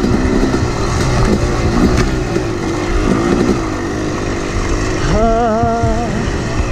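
Yamaha 250 two-stroke dirt bike engine running under way on a trail, its pitch rising and falling with the throttle. It holds a higher rev for about a second near the end.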